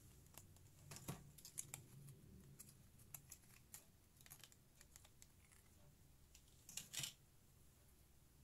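Faint, scattered clicks and light taps of small hardware being handled by hand, with a louder cluster of clicks about seven seconds in.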